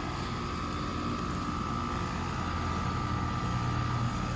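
2023 Carrier heat pump outdoor unit running in heat mode: a steady compressor hum and fan noise with a steady high whine over it. The low hum grows a little stronger near the end.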